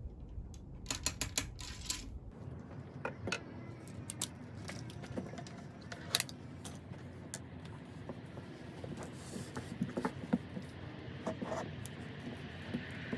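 Scattered light clicks, taps and rustles of hands handling small gear, with a few sharper metallic clinks.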